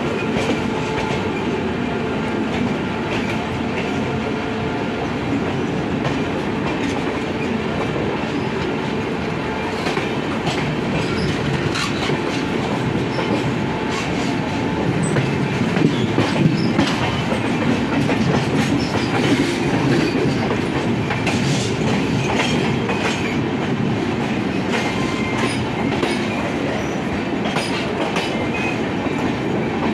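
Two Indian Railways passenger trains running side by side: a steady rumble and clickety-clack of wheels over rail joints, with the drone of the overtaking LHB train's diesel generator car running alongside. The noise swells for a few seconds about halfway through.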